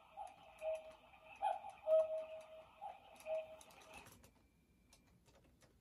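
A Beyblade spinning top wobbling in a plastic stadium, making a rhythmic ringing, ticking whir, as it winds down. It stops abruptly about four seconds in as the top comes to rest.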